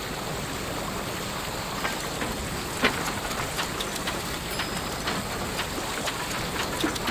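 Water rushing and splashing along the hull of a sailboat under way: a steady hiss with scattered sharp splashes, one louder about three seconds in.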